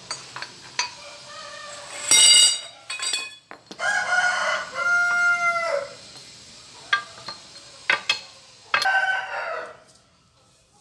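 A rooster crowing, with one long crow starting about four seconds in and shorter fowl calls before and after it. A few sharp metal clinks come from the steel dies of a hydraulic pipe bender being handled and set in place.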